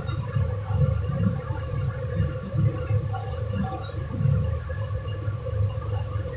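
Steady low rumble with a faint hum over it from the stove, while chicken gravy thickened with cornflour slurry cooks in the pan.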